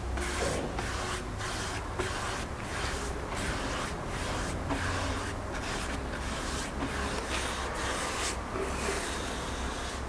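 Paintbrush stroking a glossy finish onto scorched, grooved wooden planks: a soft bristle scrape and hiss that swells and fades about twice a second, with each back-and-forth stroke.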